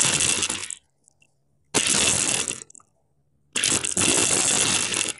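Toy radio-controlled 4x4 rock crawler's electric motor and gears running as it drives over sandy concrete, in three bursts of throttle with about a second of near silence between them.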